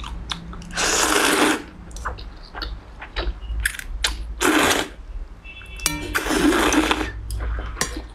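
A person slurping thin noodles out of a bowl of broth: three loud slurps, about a second in, around halfway and near the end, with small wet mouth clicks between.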